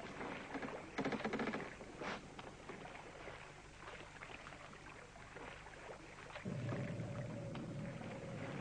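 Light knocks and a short clatter of things being handled on a small boat's deck, over the soft wash of water around the hull. About six and a half seconds in, a steady low electronic hum sets in.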